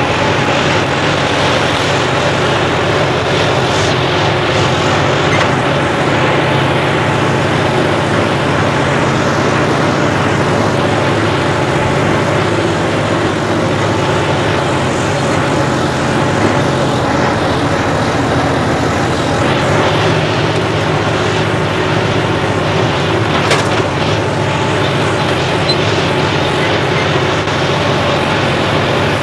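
John Deere 5405 turbo-diesel tractor engine running steadily at high power, loaded by a heavy plough.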